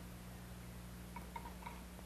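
Kitchenware clinking faintly three times, a little over a second in, over a steady low hum.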